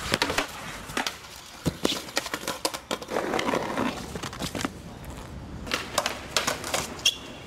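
Skateboard on hard ground: scattered sharp clacks and knocks of the board, with a rougher stretch of clatter a few seconds in.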